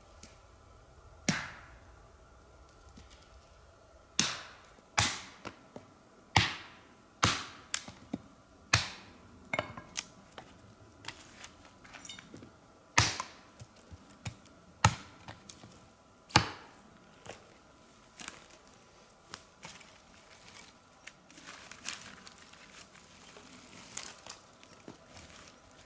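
Axe chopping wood: single sharp strikes at irregular intervals, some in quick pairs, growing fewer and fainter near the end.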